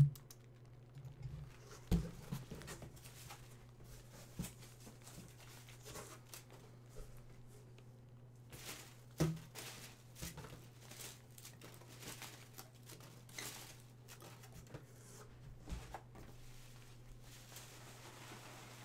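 Styrofoam packing peanuts rustling and crinkling as they are scooped by hand out of a cardboard box, with a few dull thumps of the box. A faint steady hum runs underneath.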